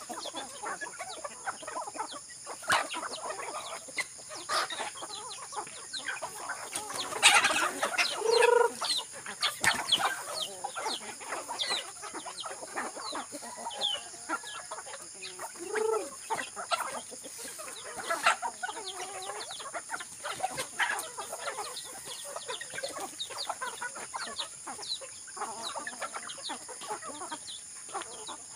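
A flock of native chickens clucking and calling as they feed, many short overlapping calls with a louder flurry about seven to nine seconds in.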